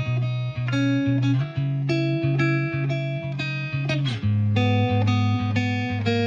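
Intro music led by a plucked guitar melody over a steady bass line, with one note sliding in pitch about four seconds in.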